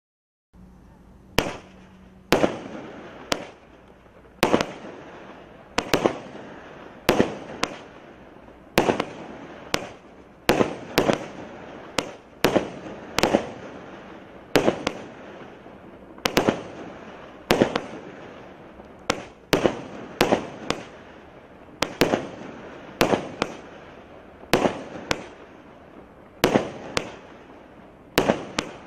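Brocade Crown 25-shot fireworks cake firing its shots straight up one after another. Its sharp reports come roughly once a second, often in close pairs, over a steady hiss, beginning about half a second in.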